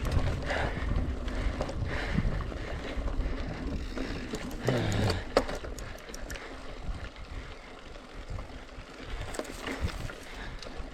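Mountain bike being ridden on a rough trail: a rumble of tyre and frame noise with scattered rattling clicks, and a brief voice sound about five seconds in. The noise grows quieter in the second half.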